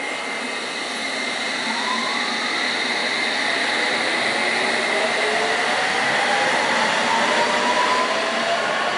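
London Underground train accelerating: its motor whine rises in pitch over the steady running noise, growing slightly louder.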